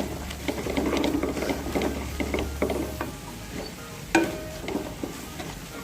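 A spoon stirring and scraping a spiced garlic-onion masala frying in oil in a kadhai, with light sizzling and repeated small clicks of the spoon against the pan. About four seconds in there is a sharper metallic knock that rings briefly.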